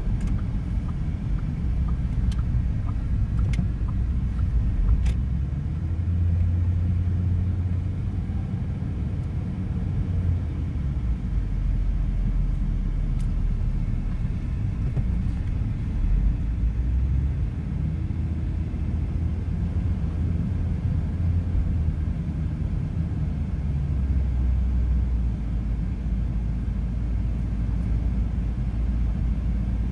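Car driving slowly, heard from inside the cabin: steady low engine and road rumble, with a couple of faint ticks a few seconds in.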